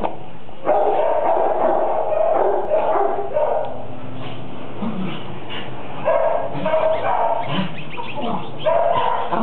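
Dogs barking, yipping and whimpering in animal-shelter kennels, the barking going on almost without a break.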